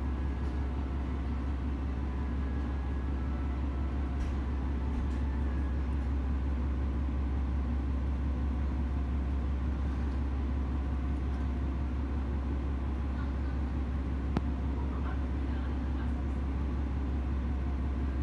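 KiHa 40 series diesel railcar's engine running with a steady low hum, heard from inside the passenger car.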